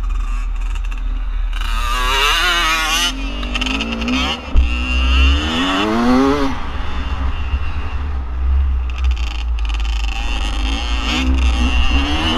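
Single-cylinder two-stroke engine of a 2017 Beta 300RR dirt bike under riding load, revs rising and falling as it accelerates. Two strong climbs come in the first half, over a heavy low rumble.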